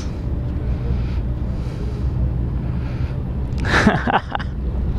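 Steady low drone of the pushing tugboat's engine as the ferry barge gets under way, under a constant noisy hiss of wind and water. A short breathy burst sounds about four seconds in.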